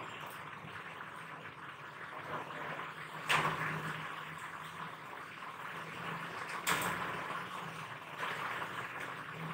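Steady room noise with a low hum, broken by two sharp clicks, one about three seconds in and another near seven seconds.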